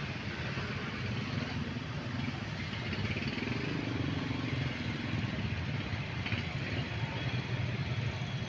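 Road traffic: a steady, low rumble of passing motorcycle and car engines.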